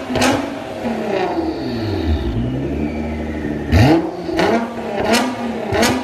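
Nissan GT-R R35 NISMO's twin-turbo 3.8-litre V6 blipped through an Armytrix aftermarket exhaust. One sharp rev near the start falls back to a steady idle, then a quick series of four rev blips comes in the second half, each rising sharply and dropping back.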